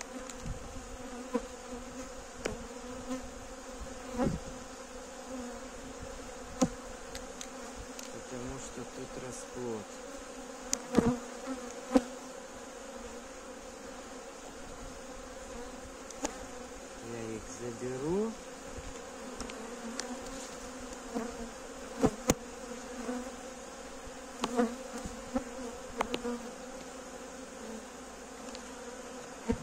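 A honey bee colony humming steadily in an open wooden hive. Sharp knocks and clicks are scattered through it, the loudest near the middle, as the wooden frames are handled with a hive tool.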